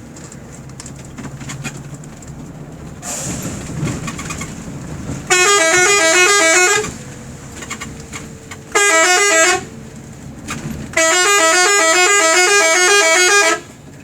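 An ALS bus's telolet horn playing its quick warbling multi-note tune in three blasts: one of about a second and a half, a shorter one, then a longer one of about two and a half seconds. Vehicle engine and road noise runs underneath between the blasts.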